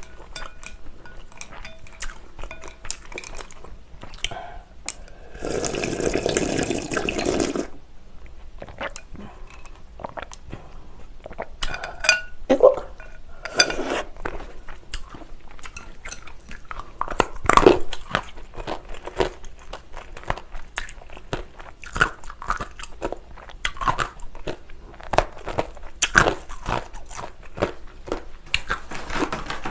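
Close-miked eating of chewy jjolmyeon noodles: wet chewing and mouth clicks throughout, with a long slurp about six seconds in.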